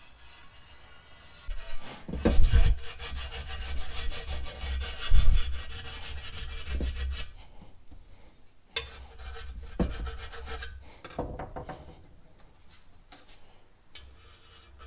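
A razor blade scraping old sealant off the aluminum oil pan's sealing flange in fast, repeated strokes, steady for several seconds and then in shorter spells. Twice early on there is a dull knock.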